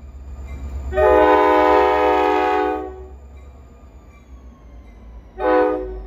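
NJ Transit EMD GP40PH-2 diesel locomotive sounding its multi-note air horn: one long blast of about two seconds, then a short blast about two and a half seconds later. A low diesel rumble runs beneath and grows louder near the end as the locomotive draws close.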